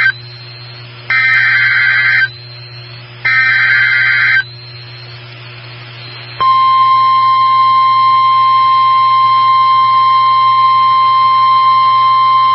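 NOAA Weather Radio Emergency Alert System sequence: two warbling SAME digital header bursts, each about a second long and a second apart, then about 6 seconds in the steady 1050 Hz warning alarm tone sounds continuously. This marks the start of a new warning broadcast. A low steady hum runs underneath.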